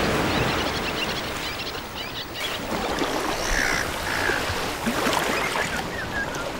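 Small surf washing onto a sandy beach, a steady rush of breaking waves, with a couple of short bird calls about halfway through.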